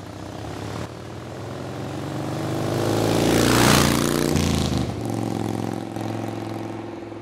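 A motor vehicle driving past: its engine grows louder to a peak about three and a half seconds in, drops in pitch as it passes, then fades away.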